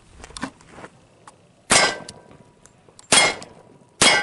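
Three .40 S&W pistol shots fired at a steel armor plate, spaced irregularly: one about a second and a half in, one near three seconds, and the last just before four seconds.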